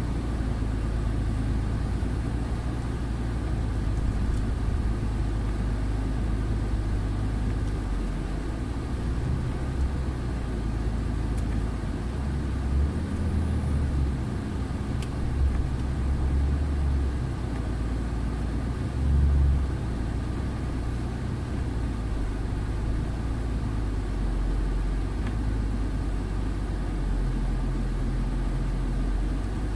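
Truck engine heard from inside the cab, pulling slowly along a snow-covered road: a steady low drone, which swells a few times about halfway through.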